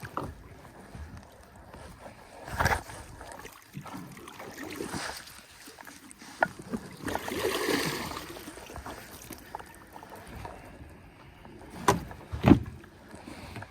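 Knocks and bumps in a small fishing boat: a single knock early on, a brief rushing sound about halfway through, and two loud knocks close together near the end.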